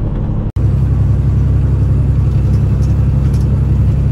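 Peterbilt 389 glider's diesel truck engine running with a steady low rumble. It breaks off sharply about half a second in and comes back louder.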